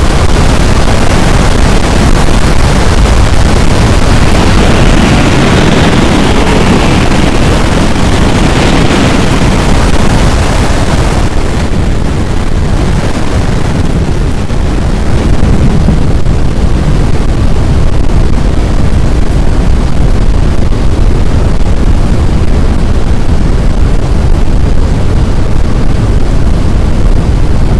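Strong wind buffeting the microphone: a loud, steady rumble with no breaks, its hiss thinning somewhat about eleven seconds in.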